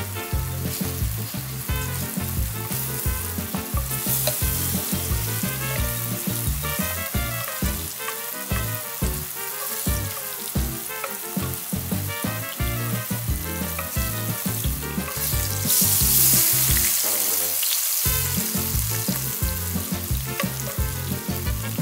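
Flour-dusted king oyster mushroom slices shallow-frying in hot oil: a continuous sizzle that swells about four seconds in and again from about fifteen to seventeen seconds in.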